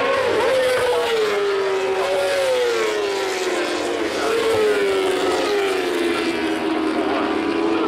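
Moto2 racing motorcycles, Honda 600 cc four-cylinder engines, running hard past the stands. Their engine notes fall in pitch as they go by, and further bikes come in about two and four seconds in.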